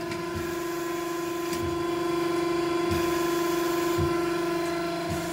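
Vertical cylinder honing machine running with its hone head stroking up and down in an engine bore: a steady motor hum, with a soft low thump about once a second as the stroke turns.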